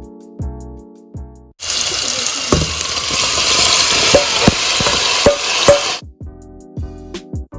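Prawns sizzling loudly in hot frying oil in a pan, with a few sharp clacks of a utensil against the pan as they are stirred. The sizzle starts suddenly about a second and a half in and cuts off about six seconds in, with background music before and after it.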